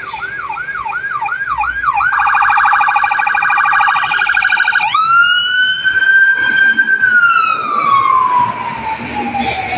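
Electronic vehicle siren cycling through its modes. It starts as a fast yelp of rising sweeps, about three a second. About two seconds in it switches to a rapid warble, and about five seconds in to a long wail that rises, holds and slowly falls away.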